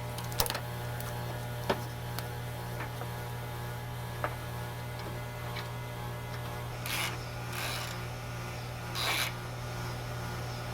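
A steady low electrical hum under a few small sharp clicks and taps in the first half. Three brief scraping rubs come about seven and nine seconds in, as headlight assembly parts are handled.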